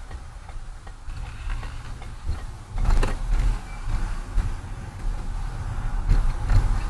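Car engine and road noise heard inside the cabin as the car pulls out of a turn and gathers speed. The low rumble grows louder about three seconds in.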